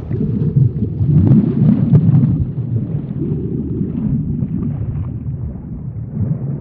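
Underwater ambience sound effect: a low, steady rumble, strongest about one to two seconds in and easing off after that.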